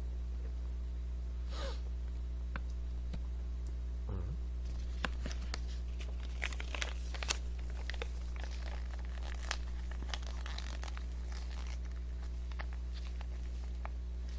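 Soft plastic spout pouch of konjac jelly crinkling and clicking as it is squeezed and sucked through its spout, most busily in the middle. A steady low hum runs underneath.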